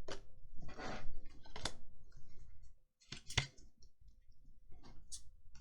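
Trading cards being handled and flipped through: a few sharp clicks and soft rustling as cards slide against each other.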